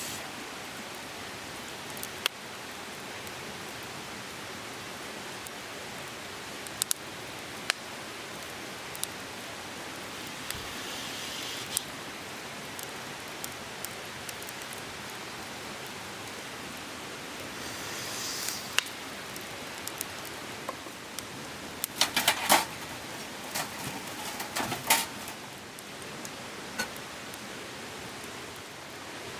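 Steady rushing of a river running close by, with scattered light clicks and knocks and a short flurry of them about three quarters of the way through.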